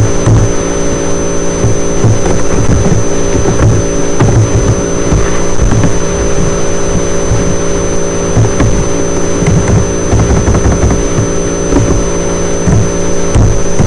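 Loud, steady electrical hum with several even tones and a thin high whine above it.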